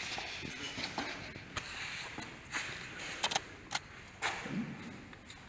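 Scattered sharp slaps and scuffs of arms, hands and shoes during a Wing Tsun lat sao contact drill between two people, over the rustle of clothing, with about half a dozen distinct hits from a second and a half in onward.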